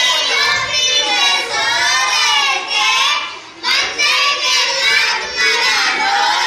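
Young children's voices singing together in phrases, with a brief pause about three and a half seconds in.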